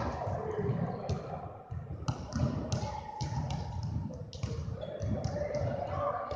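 Basketballs bouncing on a hardwood gym floor: a string of irregular thuds, a few per second.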